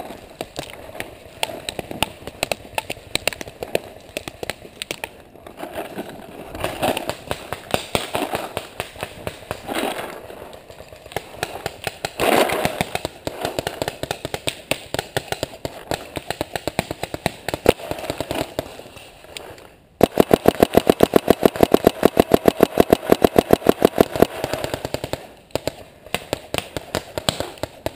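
Paintball markers firing: scattered pops of shots throughout, then about twenty seconds in a rapid, loud string of shots lasting about four seconds from a marker close by.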